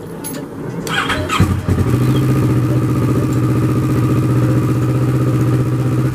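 2012 Kawasaki Ninja 650R's parallel-twin engine being started: a few clicks, then about a second and a half in the engine fires and settles into a steady idle.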